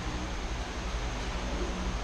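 Steady background rumble and hiss with no distinct event.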